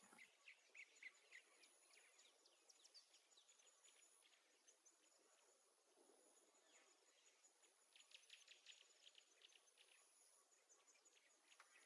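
Near silence: faint room tone with scattered faint, short high chirps.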